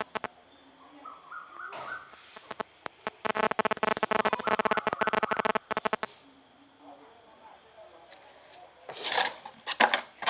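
Steady high-pitched insect chirring, typical of crickets, running throughout. A loud, rapid pulsing sound sits in the middle, and brief loud rustling comes near the end.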